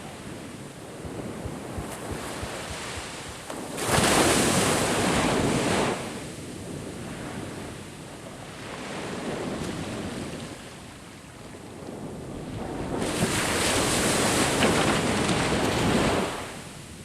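Surf washing onto a beach under wind buffeting the microphone. Two loud surges stand out: one comes in suddenly about four seconds in and lasts a couple of seconds, and another builds slowly near the end and then cuts off sharply.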